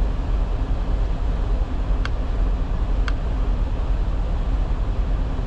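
Semi truck's diesel engine idling, a steady low rumble heard inside the cab, with two faint ticks about two and three seconds in as the logbook touchscreen is tapped.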